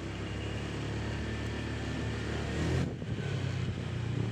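Motor vehicle engine running steadily under way, with road and wind noise. It swells slightly just before three seconds in, drops briefly, then carries on.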